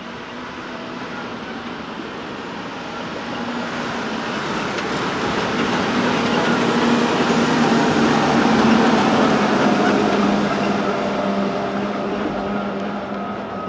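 Bell B45E articulated dump truck driving past: its diesel engine drones steadily, swelling to its loudest about two-thirds of the way through, then fading as the truck moves away.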